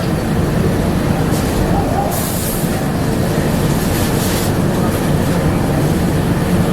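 Bombardier APM100 rubber-tyred people-mover car running along its guideway: a steady low rumble with brief hissing surges about two and four seconds in.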